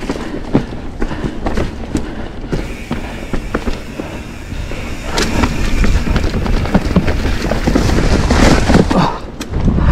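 Pivot Switchblade mountain bike clattering along a rough trail: many sharp knocks and rattles from the tyres, frame and drivetrain over a low wind rumble on the microphone. It gets louder about halfway through and eases briefly near the end.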